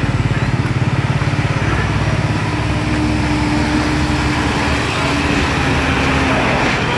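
Diesel engine of a Mercedes-Benz container truck running as it drives slowly past hauling shipping containers on a skeletal trailer: a low, steady engine note with a fine fast pulse. A higher steady tone joins about three seconds in.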